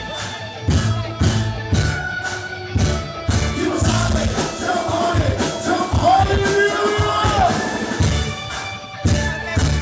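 Rock band playing live: drum kit with regular hits, electric bass and guitar, and a singer's voice over them, heard as an audience recording in a club.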